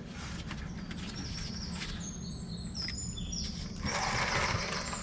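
A bird singing: a run of short, high whistled notes stepping up and down in pitch, over a steady low background rumble, with a brief hiss about four seconds in.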